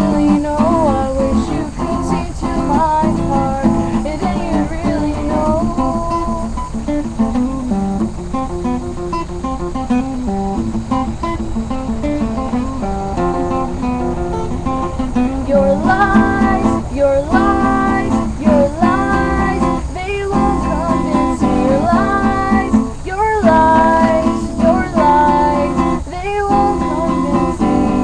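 Acoustic guitar strummed and picked in a home jam, with a woman singing the melody over it.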